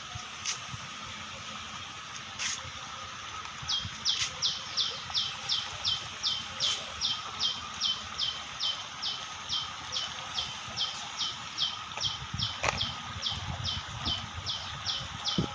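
A bird calling a short, high, downward-slurred note over and over, about two and a half times a second, starting about four seconds in. Behind it is a faint steady high hum and a low rumble.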